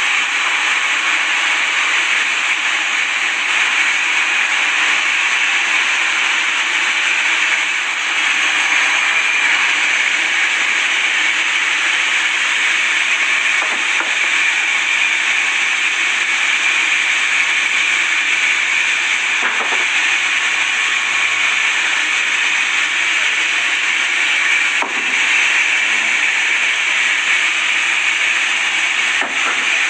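A sawmill saw cutting steadily through wood, giving a loud, even hiss throughout, with a couple of faint knocks in the second half.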